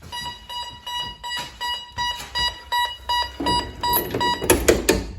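ADE Technic alarm panel's sounder giving a high interrupted tone after motion in front of the detector while the system is set: steady for about a second, then beeping about four times a second. Clattering and clicks of handling come in near the end, and the tone cuts off as the panel is disarmed.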